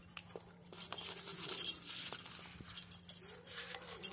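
Large dog's metal chain and collar rattling and clinking as the dog moves about on the leash, with faint whining from the dog.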